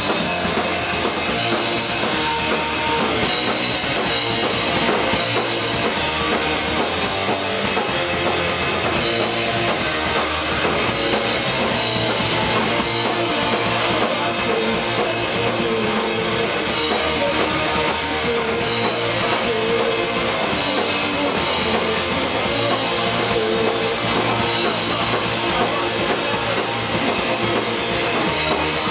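Pop-punk band playing live at full volume: distorted electric guitars, bass and a driving drum kit, with vocals sung into the microphones, heard without a break through a camera microphone close to the stage.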